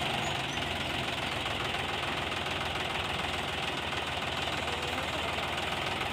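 Sonalika DI 750 tractor's diesel engine running steadily.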